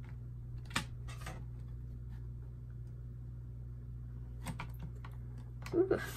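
Light clicks and taps of a laminated plastic sheet being handled and lined up on a sliding-blade paper trimmer: a couple about a second in and a cluster near the end, over a steady low hum. A short, louder sound comes just before the end.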